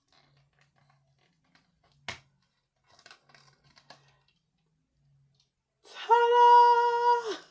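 A few light clicks and ticks of small plastic phone parts being handled. Near the end, a woman's voice holds one long sung note, louder than anything else here.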